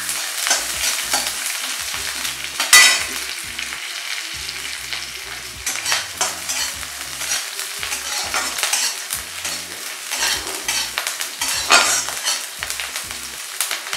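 Chopped onions sizzling in hot oil in a kadai, stirred with a spatula that scrapes and knocks against the pan. The sharpest scrape comes about three seconds in, another near the end.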